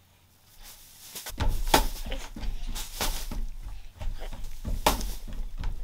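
Irregular knocks, thumps and rustling of cloth being handled on a wooden porch, starting about a second in, over a low rumble of the camera being moved.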